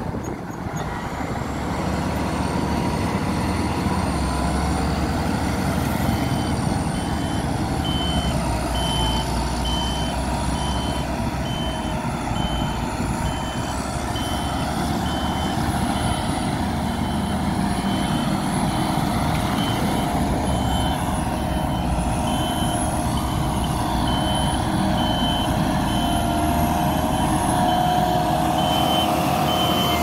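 Diesel engines of a motor grader and a road roller running steadily, with a backup alarm beeping in a steady on-off rhythm from about six seconds in.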